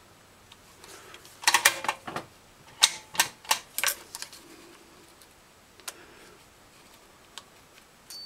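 Multimeter test probes clicking and tapping against the pins and plastic housing of a transmission park/neutral switch connector: a quick run of sharp clicks, then a second run of about four taps a second later, with a few faint single clicks afterwards.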